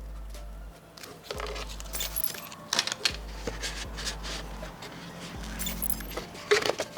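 Small hard kit parts clinking and rattling as they are handled: a string of sharp clicks and jingles, loudest about two and a half seconds in and again near the end.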